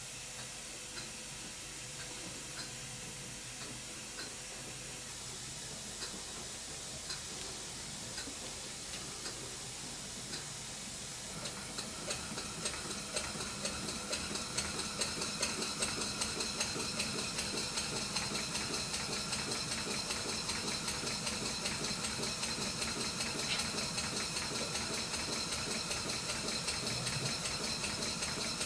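Stuart Twin Victoria model steam engine running on compressed air, its exhaust beating slowly and softly at first. About eleven seconds in, as the supply valve is opened, it speeds up to a quick, louder beat with a steady hiss of exhausting air. The engine is partway through its rebuild, its valve timing not yet quite right.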